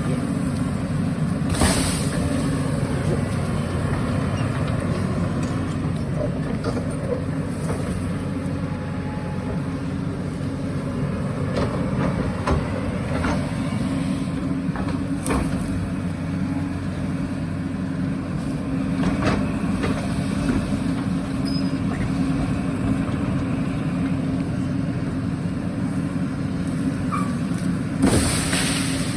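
Excavator's diesel engine running steadily at work, with scattered sharp knocks and two louder noisy bursts, one about two seconds in and one near the end.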